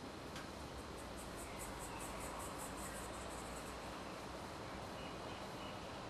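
An insect, likely a cricket, chirping in a rapid, even series of high-pitched pulses, about five a second, over steady outdoor background hiss. The chirping fades about two-thirds of the way through.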